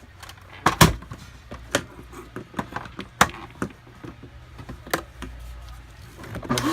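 Irregular clicks and knocks of a canister vacuum cleaner being handled, the loudest about a second in. Near the end the Electrolux Equipt 1800 W motor switches on and starts to spin up with a rising whine.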